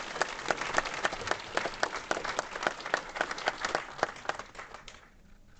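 Audience applauding. The clapping is dense at first, then thins out and dies away about five seconds in.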